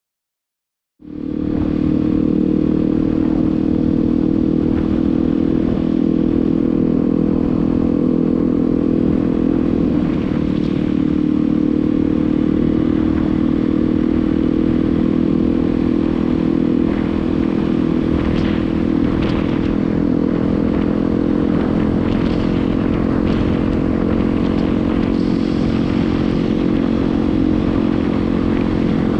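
Yamaha WR250R's 250 cc single-cylinder four-stroke engine running at a steady pitch while the bike rides along, starting about a second in. A few sharp clicks and scrapes come through in the latter half.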